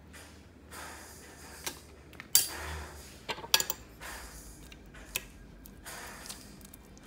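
A metal fork scraping and clinking on a ceramic plate while mashing a ripe avocado half, with several sharp clinks around the middle.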